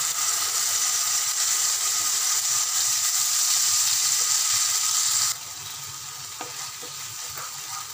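Wet ground masala paste of onion, tomato and ginger-garlic hitting hot oil in a pan and sizzling, being spread and stirred. The loud hiss drops off abruptly about five seconds in to a quieter sizzle.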